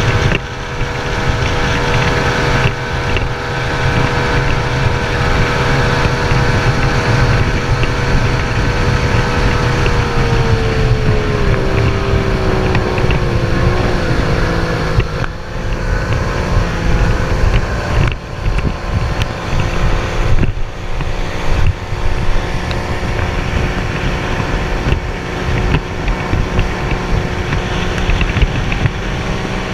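Outboard motor on a racing boat running at high revs with a steady whine, its pitch sliding down about a third of the way in as it eases off. Heavy wind buffeting on the microphone.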